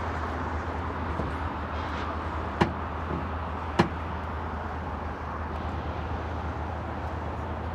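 Steady vehicle noise with a low hum, broken by two sharp knocks a little over a second apart, the first about two and a half seconds in.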